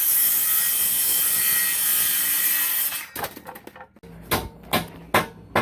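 A power tool cutting into wood runs steadily for about three seconds, then stops abruptly. After a short pause come four sharp knocks, evenly spaced less than half a second apart.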